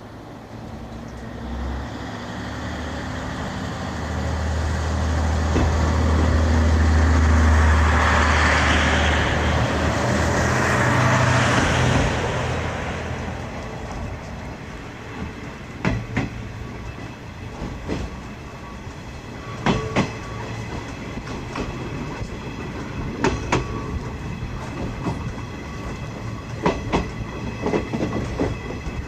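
Passenger coach running along the rails, heard from inside the car: the running noise swells to a loud rumble and then fades over the first dozen seconds. After that comes a steadier run broken by paired clickety-clack knocks as the bogies' wheels cross rail joints.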